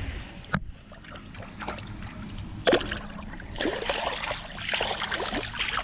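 Water splashing as a small peacock bass is dipped into the water by hand and kicks free: a sharp splash about half a second in, another near the middle, then a burst of splashing and bubbling for the last couple of seconds.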